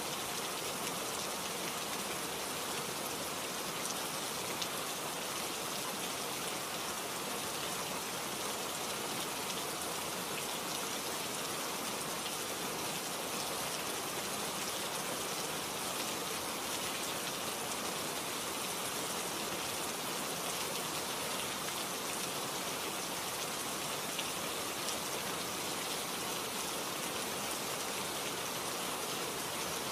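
Steady rain-like hiss, even and unbroken throughout.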